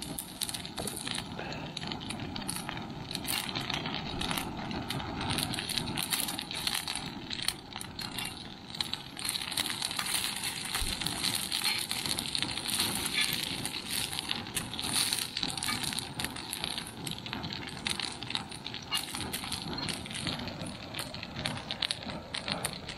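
Cod puddings sizzling and crackling as they fry in a cast-iron pan on a gas camp stove, a steady dense crackle of tiny pops.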